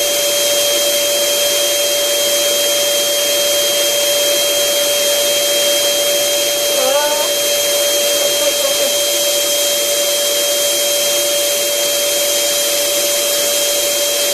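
Electric air blower running steadily with a constant whine, pumping up a giant balloon. A brief high vocal sound comes about seven seconds in.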